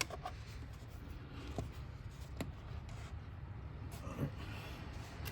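Faint clicks and handling noises as a fuel-line quick-disconnect release tool is worked onto a fuel line fitting, over a low steady hum.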